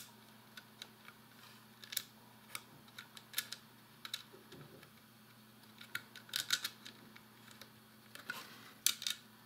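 Small metal aluminium-extrusion nuts being turned by hand onto M5 screw ends in a 3D-printed plastic base: scattered light clicks and scrapes of metal and plastic, a few at a time.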